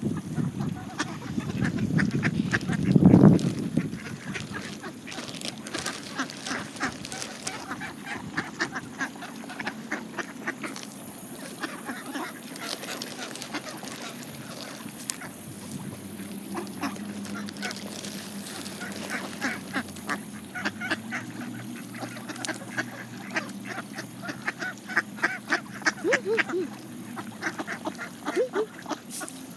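Mallard ducks quacking and Canada geese honking while feeding on seeds, with a loud low honk about three seconds in. Throughout there are many quick clicks of bills pecking at the seed.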